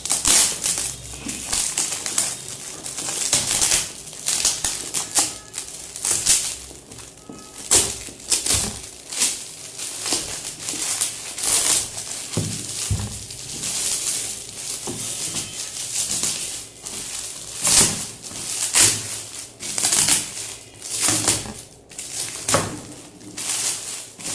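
Glossy gift-wrapping paper being torn and crumpled off a box by hand: a busy run of rips, crackles and rustles, with a few sharper tearing bursts.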